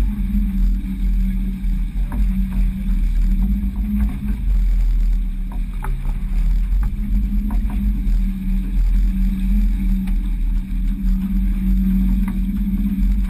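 A sailboat under way: a steady low rumble with a constant hum, and a few faint clicks now and then.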